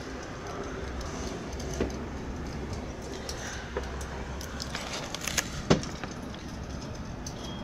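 A few light metallic clicks and rattles over a steady low hum, the loudest click near the end, as fittings in a fire engine's cab are handled.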